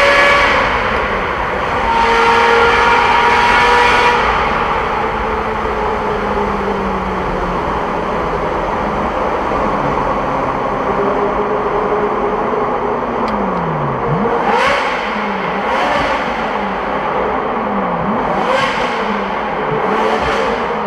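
Ferrari F355's V8 engine pulling hard, rising in pitch through the first few seconds, then easing off about four seconds in to cruise steadily, heard from inside the car with the tunnel walls echoing it. Four brief whooshes come at intervals of about two seconds near the end.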